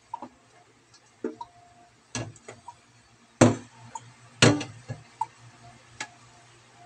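Irregular sharp knocks and clatter from a plastic colander of peanuts being handled in a stainless steel sink, about seven in all, the two loudest about three and a half and four and a half seconds in, over a faint steady low hum.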